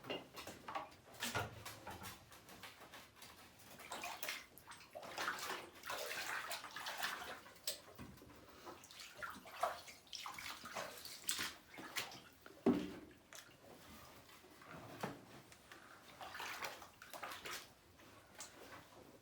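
Floodwater in a cellar splashing and sloshing in irregular bursts as it is stirred or scooped, with a short knock about two-thirds of the way through.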